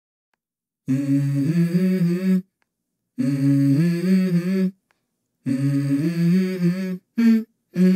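Song intro: a voice humming a short stepwise melody, three phrases of about a second and a half with brief pauses between, and a fourth beginning near the end.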